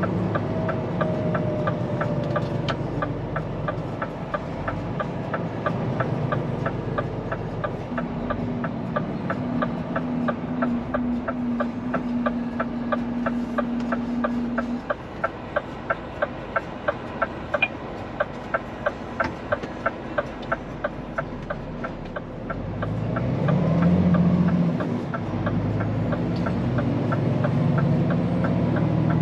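Scania P410 truck's diesel engine running at low revs, heard from the cab, with a fast, regular ticking throughout. The engine grows louder about 23 seconds in.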